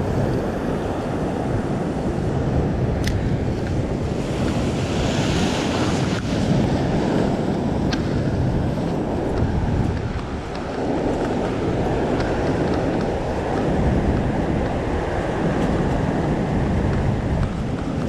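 Wind buffeting the microphone over surf washing against a rock ledge: a steady rumbling rush, with a couple of faint clicks.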